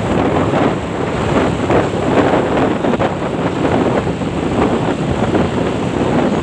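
Wind buffeting the microphone of a phone on a moving motorcycle: a loud, steady rush of wind noise over the sound of the ride and traffic.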